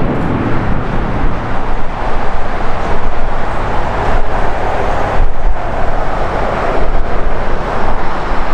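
Jet airliner engines running at high power: a loud, steady roar heavy in the low end, with wind buffeting the microphone.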